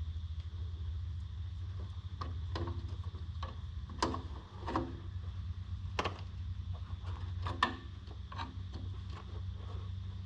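Hand tools clicking and knocking against the alternator's terminal nut as it is worked loose, with a few sharper knocks about four, six and seven and a half seconds in. A steady low hum runs underneath.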